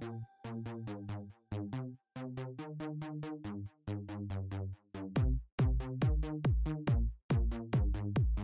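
Electronic background music with a steady drum-machine beat and repeating bass notes; about five seconds in, a deep, heavy kick drum joins the beat.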